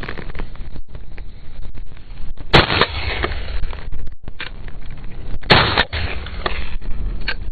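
Two shotgun shots from an MP-155 semi-automatic, about three seconds apart, the first a little over two and a half seconds in.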